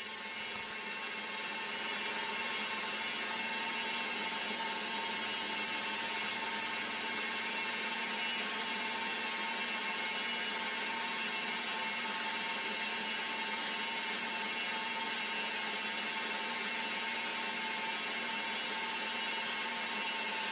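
A small workshop machine tool running steadily, with a constant whine over an even machining noise that builds up over the first couple of seconds.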